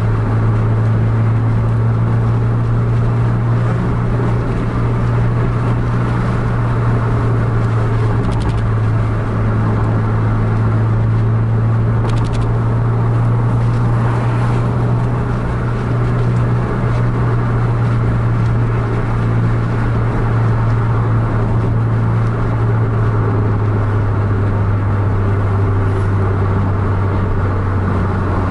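Steady low engine drone and road noise heard from inside a vehicle travelling at speed on a highway.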